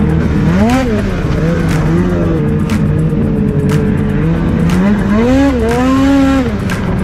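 Two-stroke Polaris mountain snowmobile engine running under throttle on the move. It revs up briefly about a second in, then holds a steady drone and revs high again from about five to six and a half seconds in. A few sharp ticks sound over it.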